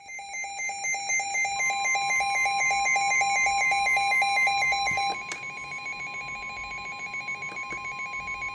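Emergency weather-alert tones: a rapid, evenly pulsing electronic beep alarm, joined about a second and a half in by the steady NOAA Weather Radio warning alarm tone held on one pitch. About five seconds in, the beeping drops in level but keeps pulsing under the steady tone.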